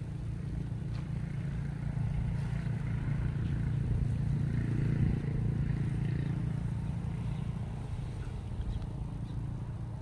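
A small engine passing by: a steady low drone that grows louder to a peak about halfway through, then fades again.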